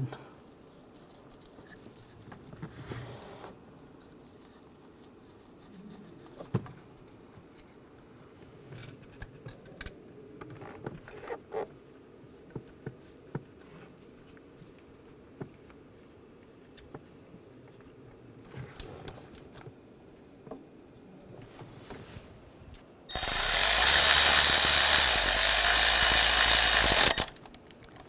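Faint clicks and knocks of bolts being started by hand, then near the end a handheld power tool runs steadily for about four seconds, driving the bolts in, and stops abruptly.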